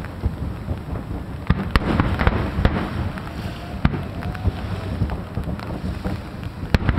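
Fireworks show: a steady low rumble of distant bursts, with sharp bangs and crackles every second or so, a close cluster of reports about two seconds in and again near the end, and wind on the microphone.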